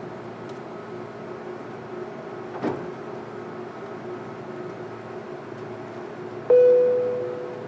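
Steady hum of an Airbus A330 cabin, with one short click a little before the middle, then a loud single-note cabin chime near the end that rings and slowly fades.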